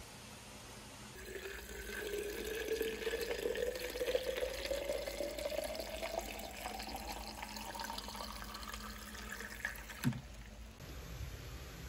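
Water running into a container, its pitch rising steadily for several seconds as it fills, then stopping, followed by a single knock.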